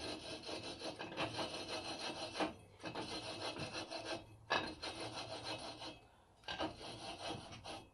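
Flywheel being twisted back and forth by hand on the crankshaft taper of a two-stroke scooter engine, coarse valve grinding paste rasping between the metal surfaces as they are lapped to seat properly. The grinding stops briefly three times.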